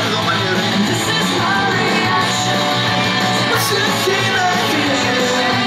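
Rock song with a lead singer, playing steadily.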